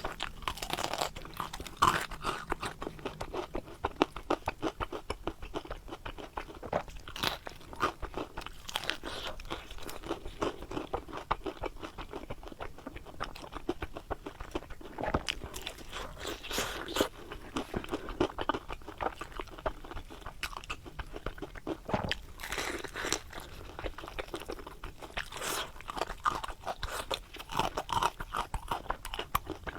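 Crunchy chewing and biting of deep-fried stuffed eggplant fritters (eggplant boxes), the crisp fried crust crackling with each bite and chew.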